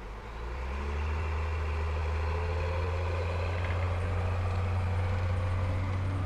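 Heavy vehicle engine running with a low, steady rumble that swells about half a second in and holds.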